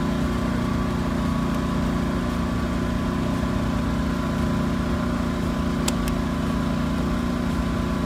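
Taiwan Power (清水牌) GT2000W 79 cc inverter generator running at a steady speed. Two short clicks come about six seconds in.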